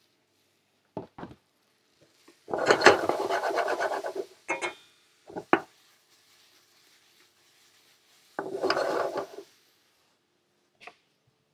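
Stainless steel sauté pan shaken and scraped on an electric hotplate to toss banana slices in caramel: two rattling, scraping bouts, the first about two and a half seconds in and the second near eight and a half seconds, with a few short knocks in between.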